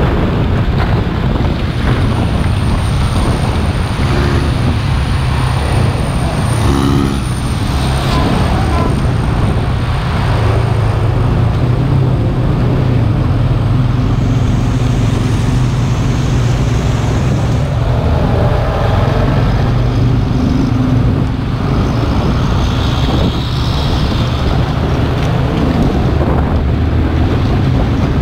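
Diesel bus engines running hard in traffic on a wet road: a steady deep engine drone with tyre hiss and wind buffeting the microphone. Two short pitched sounds rise over it, about seven and about nineteen seconds in.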